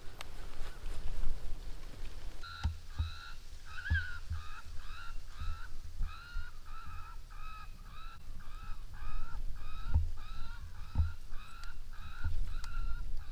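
Electronic predator call playing a prey-distress sound for coyotes: a steady run of short, wavering cries, about two a second, starting a couple of seconds in. Low thumps of wind or handling on the microphone underneath.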